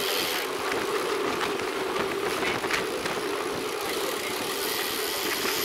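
Steady riding noise from a bicycle-mounted camera: road-bike tyres rolling on a concrete road with air rushing over the microphone, a constant hum under an even hiss.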